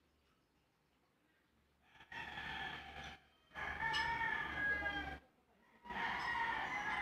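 Rooster crowing: three long crows in a row, starting about two seconds in, with short breaks between them; near silence before the first.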